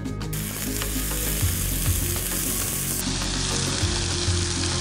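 Food sizzling as it fries in a hot stainless-steel pot, stirred with a wooden spoon: a dense, steady hiss that sets in about a third of a second in and gets brighter about three seconds in.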